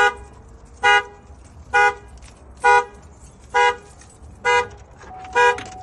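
Chevrolet Trailblazer's horn sounding in its alarm pattern: seven short, loud honks at an even pace of about one a second, stopping shortly before the end. The theft alarm has been set off by opening the door with the key, which the owner says happens when she unlocks it with the key.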